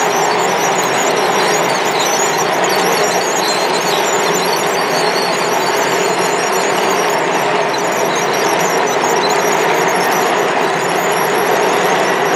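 Model railroad locomotives running: a steady, dense mechanical noise with a wavering high-pitched squeal.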